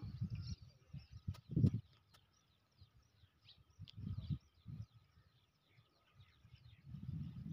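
Small birds chirping over and over in quick, short calls, with irregular low rumbles that buffet the microphone and a few sharp clicks in the first two seconds.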